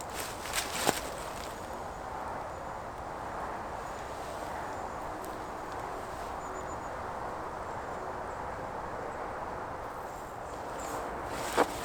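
Steady outdoor background noise, with a few footsteps or snapping twigs in the first second and a sharp crack near the end.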